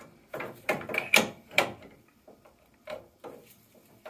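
Pipe grips clicking and knocking against the boiler's pipework as they are set onto a compression nut: a quick run of about five sharp clicks in the first two seconds, then a few fainter knocks.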